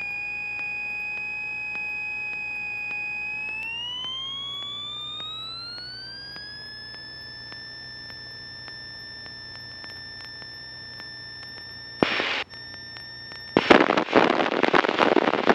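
A steady high whine, tied to the light aircraft's engine speed, climbs smoothly in pitch about four seconds in as power comes up for the takeoff roll, then holds. Near the end, after a brief burst, a loud crackling rush of noise cuts in.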